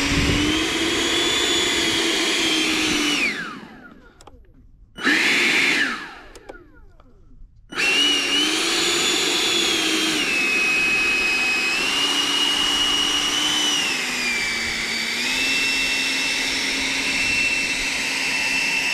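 The 90 mm electric ducted fan of a radio-controlled F-18 jet, powered by a 12S battery, whines steadily at high throttle. About three seconds in, its pitch falls and it cuts out, with one short burst around five seconds. It comes back about eight seconds in and holds steady, stepping slightly up and down in pitch.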